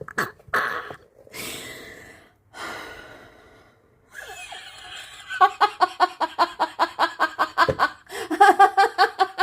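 A woman laughing hard at herself: breathy bursts of breath at first, then from about five seconds in a long run of rapid laughing pulses, about five a second.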